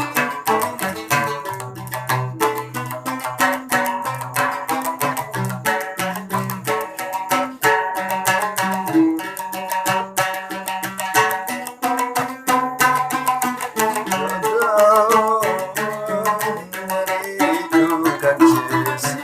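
Large Sasak gambus (lute) played solo in Cilokaq style: a quick, continuous run of plucked melody notes over a repeating low bass note.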